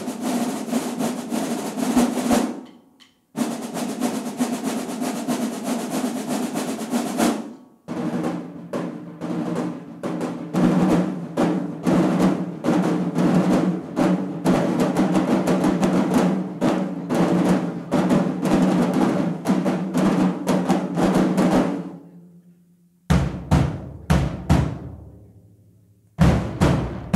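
Marching drumline of snares, tenors, tuned bass drums and crash cymbals playing a cadence: fast snare strokes and rolls over pitched bass-drum notes, with short breaks about three and eight seconds in. The steady playing stops about twenty-two seconds in, and a few separate full-section hits follow, each ringing out.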